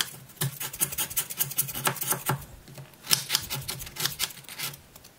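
A kitchen knife scraping shavings off a hard block of papelón (raw cane sugar) on a wooden cutting board, in quick repeated rasping strokes, several a second.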